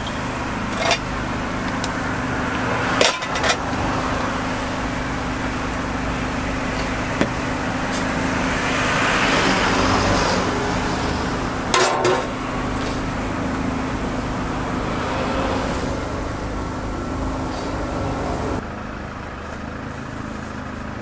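Street ambience of steady traffic noise with a low hum, broken by a few sharp clicks of metal utensils at a takoyaki griddle, a few seconds in and again past the middle. Near the end the sound turns quieter and duller.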